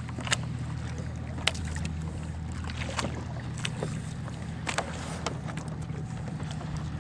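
Scattered sharp knocks and taps on a kayak, about six of them, over a steady low hum.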